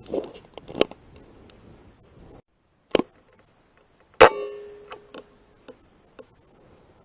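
Sharp cracks of rifle shots at rats, three of them, the loudest about four seconds in with a short metallic ring after it. Lighter clicks follow.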